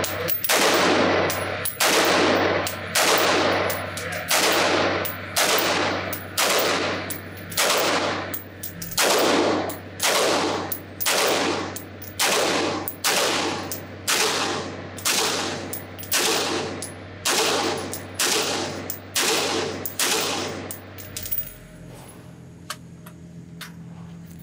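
Sig Sauer MCX-Spear LT 5.56 mm pistol with an 11.5-inch barrel firing about twenty single shots, steadily at roughly one a second. Each shot rings out in the concrete lanes of an indoor range. The shooting stops about 21 seconds in.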